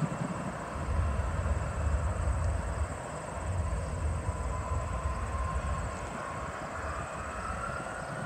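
Jet engines of taxiing airliners, including a DHL twin-engine cargo jet passing close by: a steady low rumble and hiss at taxi power. A faint whine rises slowly in pitch through the second half.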